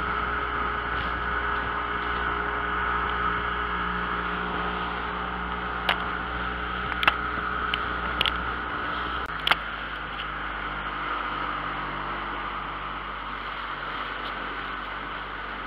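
Small fishing boat's engine running steadily under way, with a hiss of wind and water over it; its note changes a little about nine seconds in. A few sharp knocks and clicks come between about six and ten seconds in.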